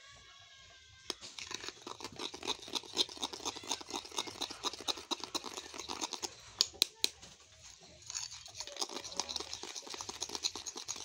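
A spoon stirring a thick chocolate paste in a small ceramic bowl: quick, repeated scraping strokes against the bowl, several a second, with a few sharper clinks about two-thirds of the way through.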